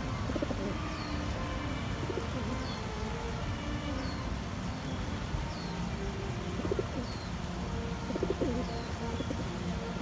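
Domestic pigeons cooing while feeding together: low, wavering coos come several times, thickest in the second half.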